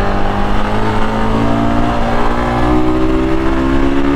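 Royal Enfield Guerrilla 450's single-cylinder engine running on the road, its pitch climbing slowly and steadily as the motorcycle accelerates.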